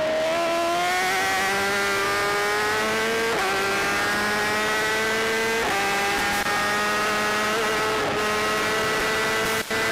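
Superbike engine heard onboard, accelerating hard out of a corner, its pitch climbing steadily and dropping sharply at upshifts about three and a half and about six seconds in, over wind noise.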